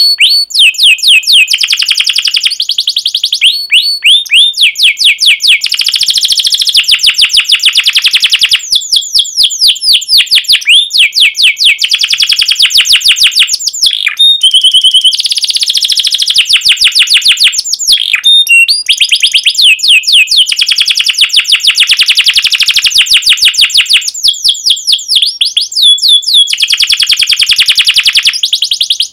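Yellow domestic canary singing a long song of fast trills and rapidly repeated sharp chirps, with a few short breaks between runs. The song cuts off suddenly at the end.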